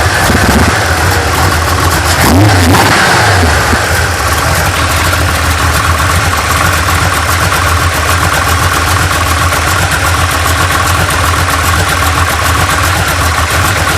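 Junkyard small-block Chevy 350 V8 with a Summit K1107 hydraulic flat-tappet cam, breathing through headers and Thrush turbo mufflers, is revved briefly near the start and again about two and a half seconds in, then settles into a steady rough idle. The sound is distorted by a clipping phone microphone.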